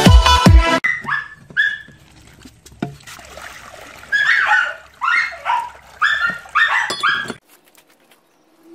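A dog whimpering and yipping in a run of short, high whines, a few in quick succession, stopping abruptly about a second before the end. In the first second electronic intro music with a heavy beat ends.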